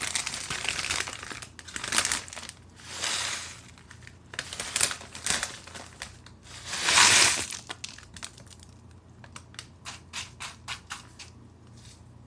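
Tortilla chip bag crinkling and rustling as chips are poured into a bowl, with the loudest rustle about seven seconds in. Near the end comes a rapid run of light clicks as chips drop.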